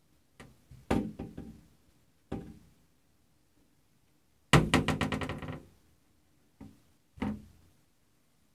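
Vanity cupboard door knocking and rattling against the cabinet frame as a cat paws and pulls it open and lets it fall back. Several separate knocks, some with quick rebounds, and the loudest is a run of rapid clacks lasting about a second, about halfway through.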